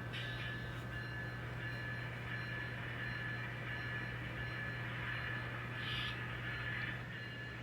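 N scale model locomotive running on the layout: a steady electric motor whine over a low hum, with short louder noisy spots at the start and about six seconds in.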